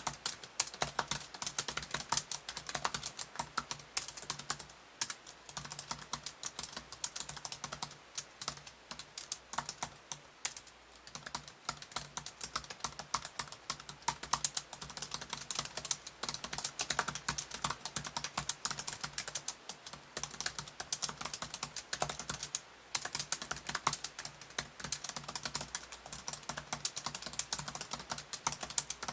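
Fast, continuous typing on a Samsung Series 9 NT900X3B-A74 laptop's keyboard: dense, irregular key clicks with a few brief pauses, from keycaps the typist calls hard rather than soft.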